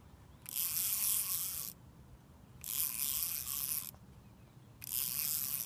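Spinning reel being cranked in three bursts of a second or so, its gears whirring, while a small hooked fish is reeled in.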